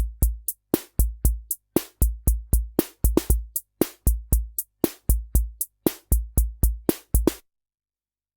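Korg SR-120 Mini Pops analog drum machine playing its rock rhythm pattern, a deep electronic bass drum under crisp noisy snare and hi-hat hits. The pattern stops abruptly about seven seconds in.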